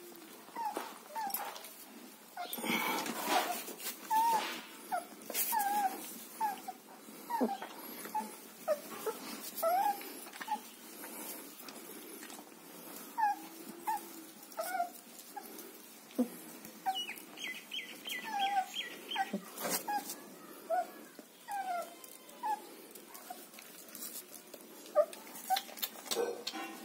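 German Shepherd puppies whining and yelping in many short, high squeaks, with scuffling noises in between as they tumble over one another.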